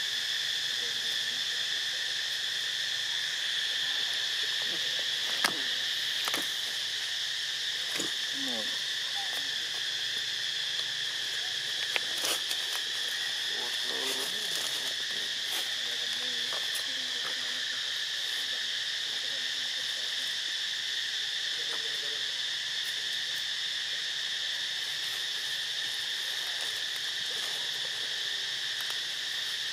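A steady, shrill insect chorus, held on two high pitches without a break. A few sharp clicks stand out near the middle.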